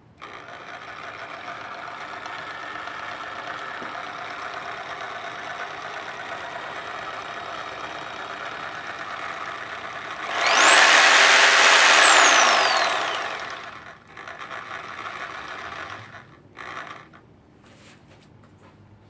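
Bosch reciprocating saw with a pruning blade running without cutting. It starts suddenly and runs steadily. About ten seconds in it speeds up and gets much louder, with a high whine that climbs, holds, then slides down as the saw winds down. A few short, weaker bursts of running follow.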